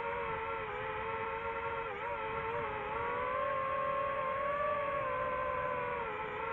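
DJI quadcopter's motors and propellers whining steadily, recorded from the drone itself: two close tones that waver together, dip briefly about two seconds in and again near the end, and climb a little in between as the drone manoeuvres.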